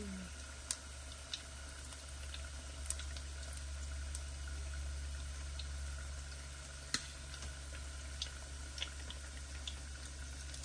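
Hot cooking oil deep-frying sticky-rice-wrapped chicken: a faint steady sizzle with scattered sharp pops and crackles, a few louder ones. A steady low hum lies underneath.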